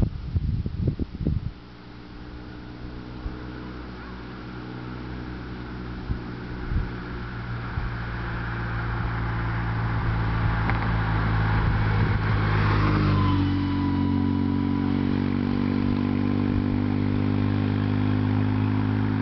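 Secma Extr'm 500's engine approaching at a steady speed, growing louder for about ten seconds. Its pitch drops as it passes close about two thirds of the way through, and it stays loud after that. Low bumps of wind or handling on the microphone in the first second or so.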